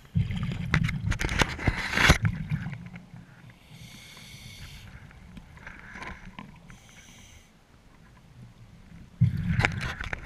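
Scuba diver breathing through a regulator underwater: a loud burbling rush of exhaled bubbles for about two seconds, two quieter hisses of inhaling, then another burst of exhaled bubbles near the end.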